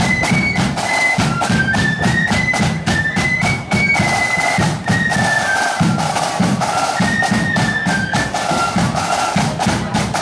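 Marching flute band playing a march tune: a high flute melody over steady side-drum and bass-drum beats.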